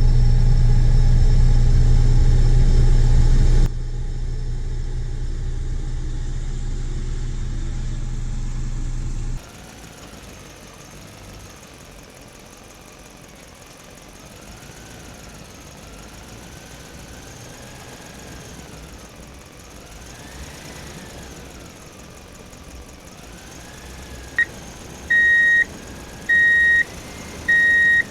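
Truck engine idling with a steady low hum, dropping in level about four seconds in and again about nine seconds in, then a fainter sound with a slowly wavering whine. Near the end a single-pitched beeper starts sounding in regular on-off beeps about once a second, like a truck's reversing alarm.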